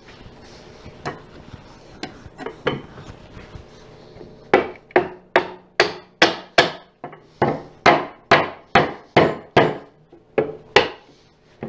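Rubber mallet striking the joints of a teak chair frame, driving glued dowels home. A few light taps, then a steady run of sharp blows about two or three a second, a short pause, and two more blows near the end.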